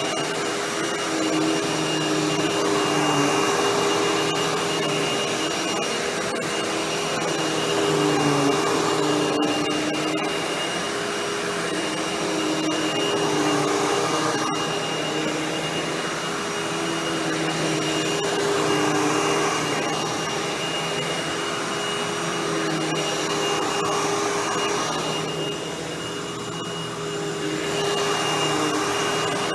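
Hoover WindTunnel Anniversary Edition bagless upright vacuum running steadily while vacuuming, a constant high whine over a motor hum that shifts slightly in pitch now and then. It goes briefly quieter near the end.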